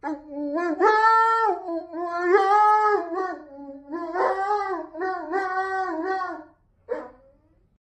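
A dog howling and whining in a string of drawn-out, wavering calls that bend up and down in pitch, with a short last call about seven seconds in.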